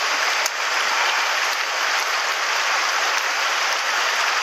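Mountain stream running over cobbles and stones, a steady rush of water, with a few faint clicks.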